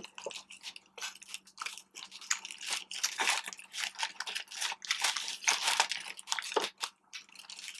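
Paper fry wrapper crinkling and rustling as hands rummage through French fries, mixed with chewing and crunching.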